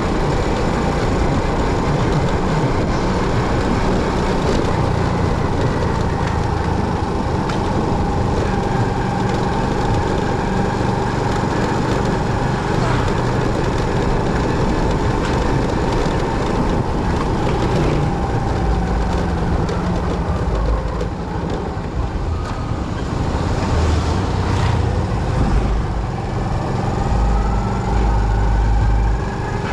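Motorcycle running along a road: steady engine and road noise with traffic, the engine's pitch drifting up near the end.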